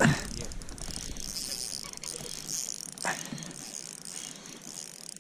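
Spinning reel ratcheting as a hooked bass is fought and wound in, over a steady high hiss, with a single knock about three seconds in.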